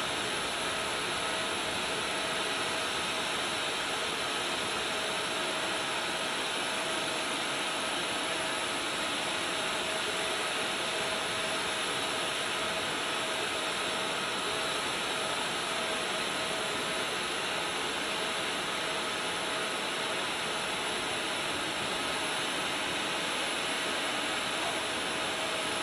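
A turbine running steadily at constant speed: an even rush of air with a high, unchanging whine made of several tones.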